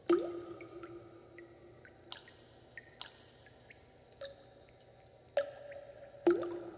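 Water drops falling into water at an uneven pace, each a sharp plink. Several leave a short ringing tone behind them. The two loudest come at the start and near the end, with about four smaller drops and faint ticks between.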